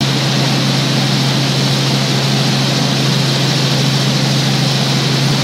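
Helicopter in fast cruise: steady rotor and engine drone, a constant low hum under an even hiss, unchanging throughout.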